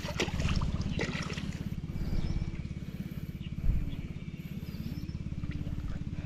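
A small engine running steadily with an even, rapid low pulse, with a few light clicks and one brief thump.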